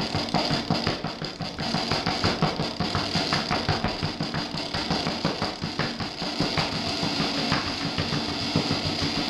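Throbbing electronic noise music over a PA: a fast, even low pulse under a steady high whine.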